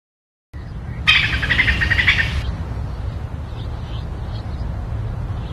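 A songbird's rapid chirping trill, lasting about a second and a half, starts about a second in after a brief dropout to silence. Fainter chirps follow over a steady low rumble of outdoor background noise.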